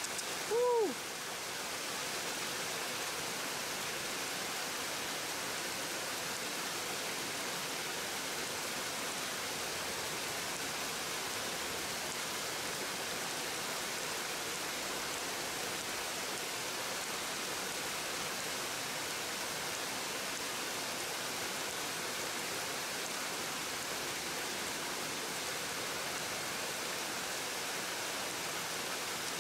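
Steady rush of flowing river water, an even hiss that does not change. About a second in, a person gives one short exclamation that falls in pitch.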